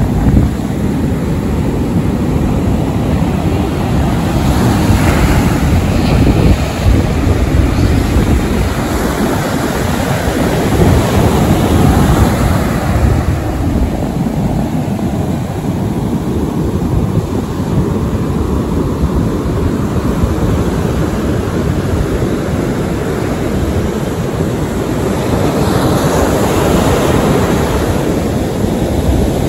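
Ocean surf breaking and washing up a sandy beach. The wash rises and falls as each wave comes in, swelling louder every several seconds.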